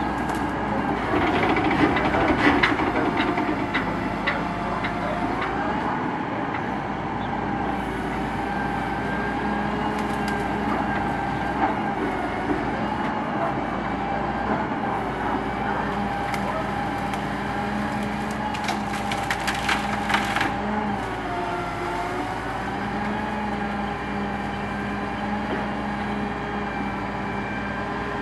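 Builtrite 88-TM truck-mounted loader running, its hydraulics whining steadily and shifting pitch as the boom moves. The grapple crushes and snaps brush, with two spells of crackling, breaking branches.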